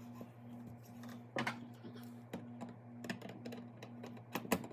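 Scattered light clicks and taps of metal faucet parts and channel-lock pliers being handled as a faucet is reassembled, with a cluster of sharper clicks near the end, over a steady low hum.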